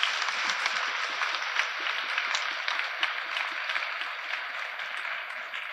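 Audience applauding, many hands clapping, easing off slightly near the end.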